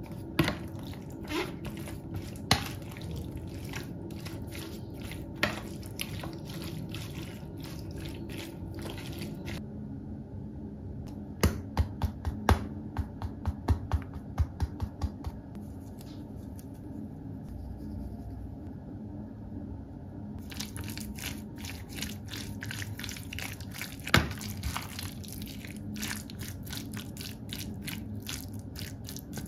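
Metal spoon stirring raw diced chicken in a plastic tub: wet squishing, with sharp clicks of the spoon against the plastic. Partway through comes a quick run of about ten taps, about three a second, as a spice shaker of paprika is shaken over the chicken.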